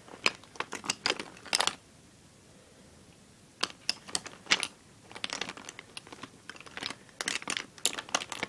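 Makeup bottles and tubes clicking and clattering against each other as hands rummage through a makeup bag, in quick clusters of taps with a pause of about two seconds near the middle.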